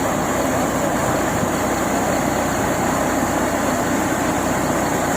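A vehicle engine running steadily with a continuous low, fast pulse.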